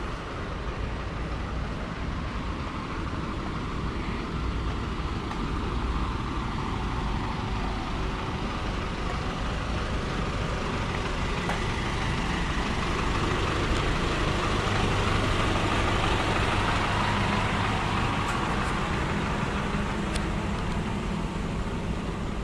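A motor vehicle's engine running close by, growing louder to a peak a little past the middle and then easing off, with a steady low hum.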